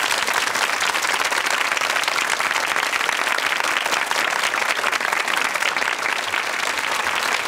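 Studio audience applauding, a dense and steady clapping.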